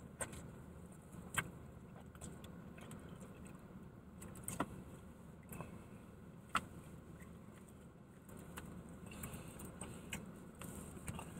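Faint steady background hum, broken by a few sharp light clicks or taps spread through it.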